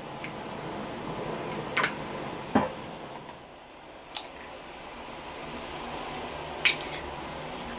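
Egg tapped and cracked against a nonstick frying pan and opened into the oil: a few short, sharp taps and cracks, the loudest about two and a half seconds in, over a steady background hiss.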